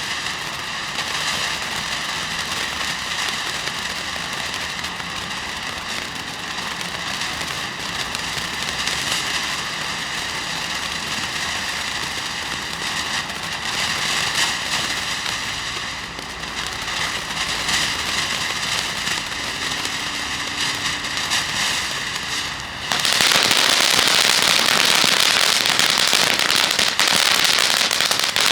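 Great Grizzly Unicorn Fountain firework burning, a steady hissing spray of sparks with crackling. About 23 seconds in it turns suddenly louder and harsher.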